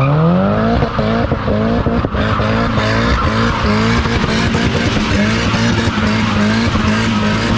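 Engine revving hard, its pitch climbing in quick repeated surges, over the steady hiss of tyres skidding while a vehicle does donuts.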